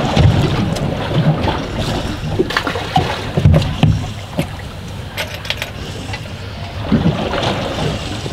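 Fishing boat drifting at sea: wind gusting over the microphone and water slapping against the hull, with a few sharp knocks about halfway through.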